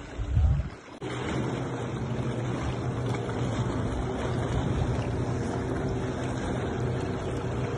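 A brief low rumble of wind on the microphone, then, from about a second in, steady wind and water noise at sea with a low, even motorboat engine hum.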